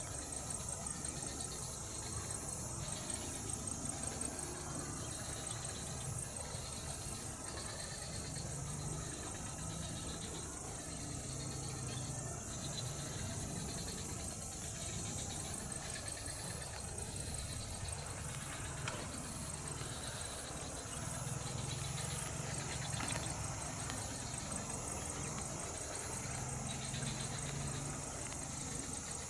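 Diesel locomotive engines running at a distance, a low steady hum that swells and eases, under a constant high-pitched hiss.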